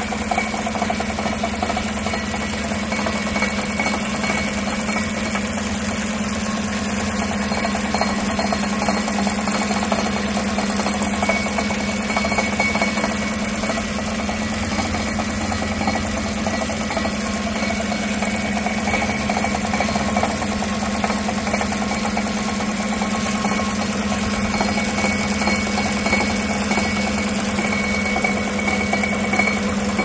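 2016 Chevy Tahoe's 5.3-litre V8 idling steadily, with a rattle from under the truck. The rattle comes from the inside of the driver-side catalytic converter crumbling apart.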